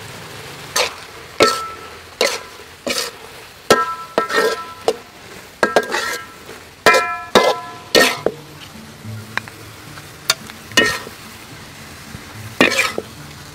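A metal spatula scraping and clanking against a cooking pan in irregular strokes, several of them ringing briefly, as a stir-fry is tossed and scooped out. Quiet background music runs underneath.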